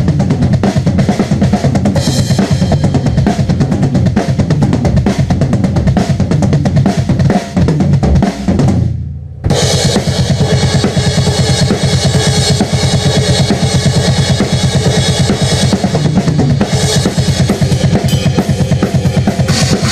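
Metal drum kit played with fast double bass drum kicks under snare and cymbals. The playing breaks off briefly about nine seconds in and starts again.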